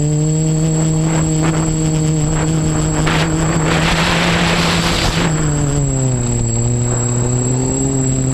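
OFM Seeker 450 quadcopter's electric motors and propellers buzzing, recorded from the GoPro mounted on the frame. A rushing noise swells for about two seconds midway, then the buzz drops in pitch and holds lower near the end. A faint steady high whine runs underneath.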